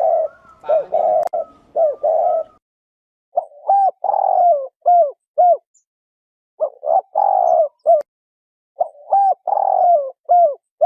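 Spotted dove cooing: about four phrases of a few low hooting notes, each phrase with one longer, drawn-out note, separated by short pauses. A few faint clicks come about a second in.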